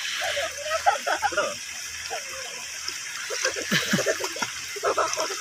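Water splashing and sloshing in a shallow stream as a swimmer paddles and churns the surface with her hands, over a steady rush of flowing water, with voices mixed in.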